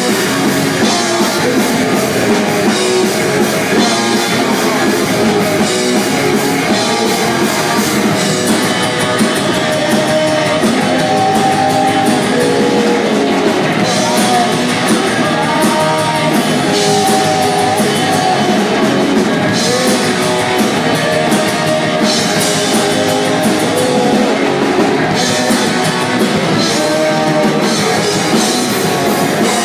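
Live rock band playing guitars and drums, loud and unbroken.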